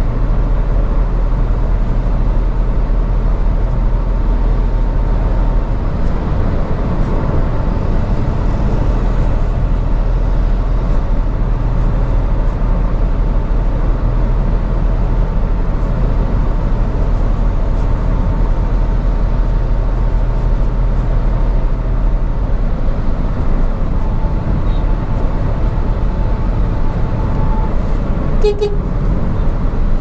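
Car driving, a steady low drone of engine and road noise, with a short burst of clicks near the end.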